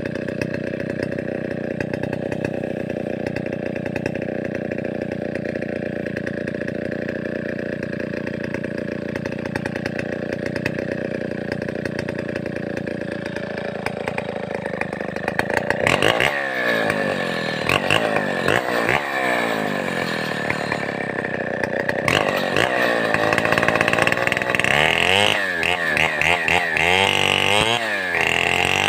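Large two-stroke chainsaw engine running at a steady pitch, then from about a third of the way in revving up and down again and again with sweeping changes in pitch.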